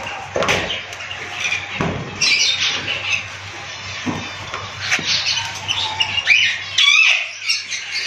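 A flock of small parrots chirping and squawking continuously. A few dull knocks come through near the start and again around two and five seconds in.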